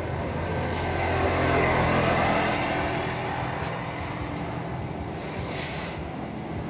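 A motor vehicle passing on the road, getting louder to a peak about two seconds in and then fading, over a steady low engine hum.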